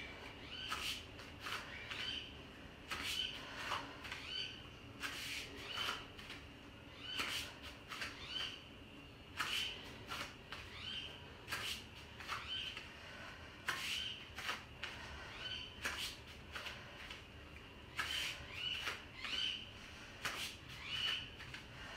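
A woman breathing hard and rhythmically while doing weighted lunges, with short breaths at a steady pace of roughly one to two a second.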